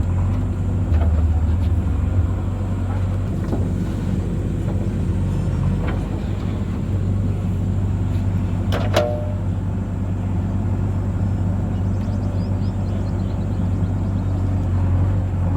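Heavy diesel engine of a JCB 3DX backhoe loader running steadily under work, with a single sharp clank about nine seconds in.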